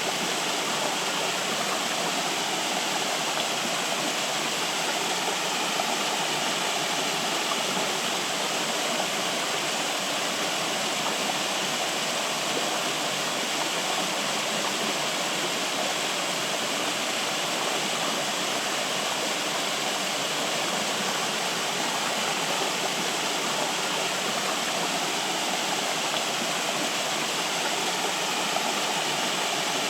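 Flowing water, running in a steady, unbroken rush.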